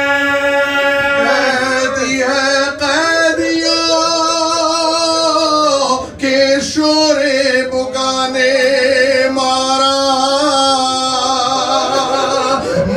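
A man singing a noha, an Urdu lament, into a microphone, drawing out long held notes with a slow waver and pausing briefly about halfway through.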